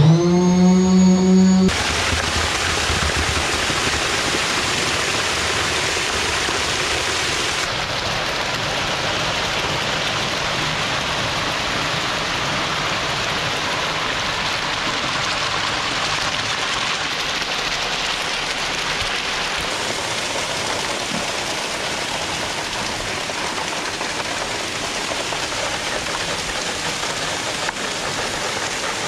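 Wet concrete pouring off a ready-mix truck's chute into insulated concrete forms, a steady rushing wash like running water. It opens with a loud pitched tone, rising briefly, that stops after about a second and a half.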